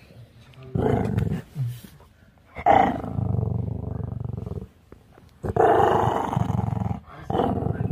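A Maltese dog growling in four rumbling growls, the longest about two seconds: an annoyed warning growl at being pestered and handled.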